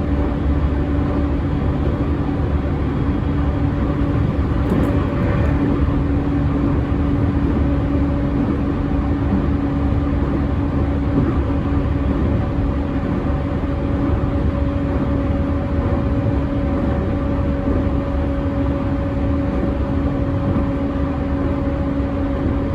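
Interior running sound of a JR E231-1000 series unrenovated motor car at speed: a steady rumble of wheels on rail under a constant low-pitched traction motor hum. The hum is stronger and lower than on other cars of the type.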